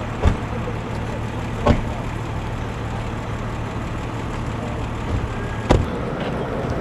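A vehicle engine idling steadily, with three sharp knocks: one at the start, another about a second and a half in, and a louder one near the end.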